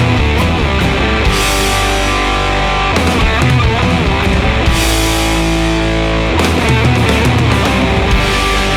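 Heavy rock music with loud, steady guitars and a driving beat.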